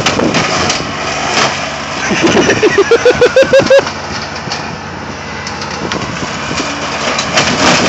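Kubota riding mower running, its deck blades chewing through a bush and throwing debris. Around the middle comes a quick run of about eight short rising squeals, the loudest part.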